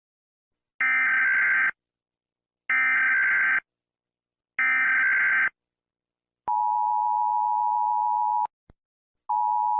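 Emergency Alert System signal: three SAME data header bursts, each about a second long with a second's gap between, then the steady two-tone EAS attention signal, broken once by a short gap and a click. Together they mark the start of a new alert message.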